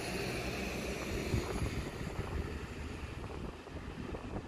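Wind buffeting the microphone in gusts, over the faint hiss of a distant electric train that fades away during the first few seconds.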